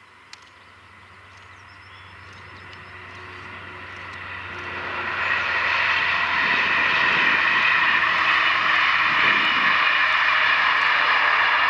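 SNCF CC 72100-class diesel locomotive hauling a rake of passenger coaches past: its engine and the wheels on the rail grow steadily louder over the first five or six seconds, then stay loud as the train rolls by. Faint birdsong near the start, with one sharp click.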